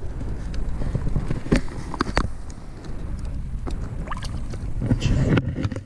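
Low rumble of wind buffeting an action camera's microphone in an inflatable boat, with several sharp knocks and handling noises, and a louder swell of noise about five seconds in.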